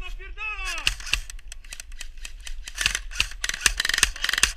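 Airsoft guns firing: sharp clicking shots, scattered at first, then in rapid bursts from about three seconds in.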